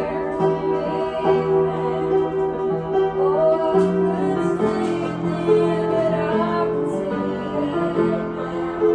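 Music with a woman singing over instrumental accompaniment, held notes changing pitch in steps.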